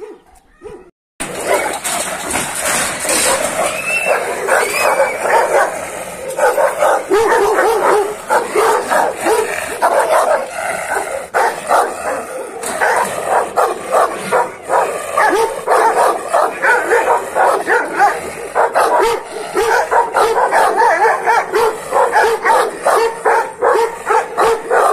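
Kangal shepherd dogs barking aggressively at each other in a rapid, unbroken barrage that starts suddenly about a second in.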